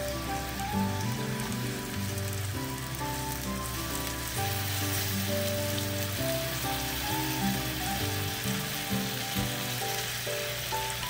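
Chicken and leek yakitori skewers sizzling in a frying pan, a steady frying hiss, with background music playing over it.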